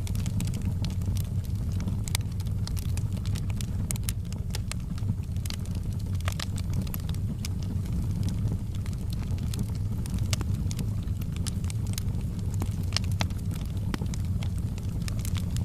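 Wood fire burning in a fireplace, crackling and popping at irregular moments over a steady low rumble.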